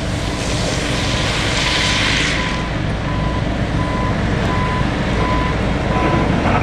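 A heavy construction vehicle's reversing alarm beeping steadily, about one single-pitched beep every 0.7 s, over the low rumble of its diesel engine. A hiss swells and fades about two seconds in.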